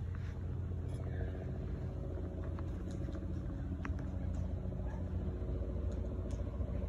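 Steady low machine rumble carrying a faint hum of several even tones, with a few faint ticks over it.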